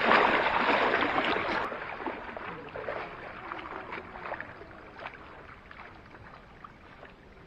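Shallow sea water splashing around wading feet, loud for about the first second and a half; then the sound cuts to a much fainter wash of gentle water that fades away.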